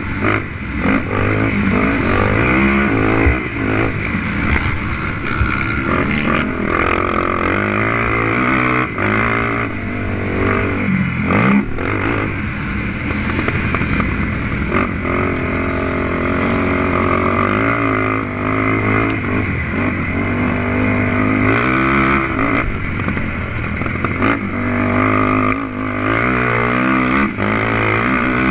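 Honda TRX450R quad's single-cylinder four-stroke engine at racing speed, revving up and dropping back over and over as the rider accelerates, shifts and brakes.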